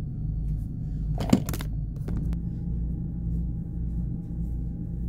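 Steady low machine hum with a faint higher whine, in a small room. A short cluster of sharp clicks and rustling about a second and a half in, then a couple of single clicks, from small objects being handled.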